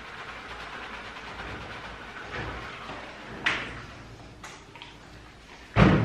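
Wet scrubbing and water hiss as a German Shepherd is lathered in a stainless steel grooming tub. About halfway through come a couple of sharp knocks, and near the end a loud thump against the metal tub.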